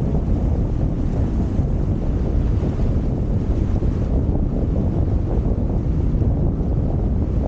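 Wind buffeting the microphone: a steady, dense low rumble with no engine note standing out.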